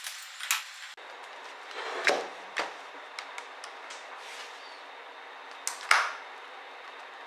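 Small clicks and knocks of laptop parts and tools being handled during disassembly, with two louder clatters about two seconds in and just before six seconds, over a steady hiss.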